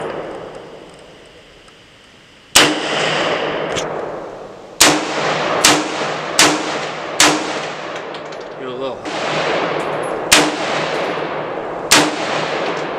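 Scoped AR-style rifle firing about seven shots, each sharp crack followed by a long echoing tail. There is a quick string of four shots under a second apart in the middle, then two more spaced out near the end.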